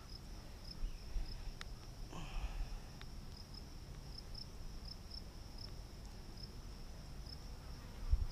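Insects trilling steadily, a high continuous buzz broken by regular pulses, over a low rumble, with two faint clicks about one and a half and three seconds in.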